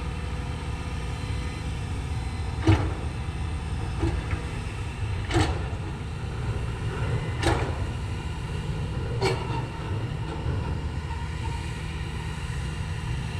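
Heavy construction machinery with an engine running steadily, and a sharp knock about every two seconds, five in all.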